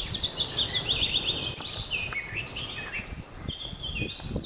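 Birds chirping: a fast run of high, downward-sliding notes in the first second or so, then scattered shorter chirps over a low background noise.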